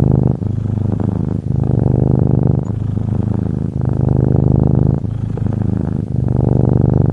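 Domestic cat purring steadily and loudly, the purr changing with each in- and out-breath about once a second.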